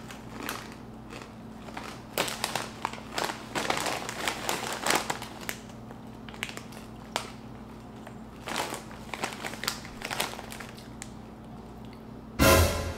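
Foil-lined potato chip bag crinkling in short bursts of rustling as it is handled and turned over. Near the end there is a louder burst of crinkling as a chip is taken from the bag.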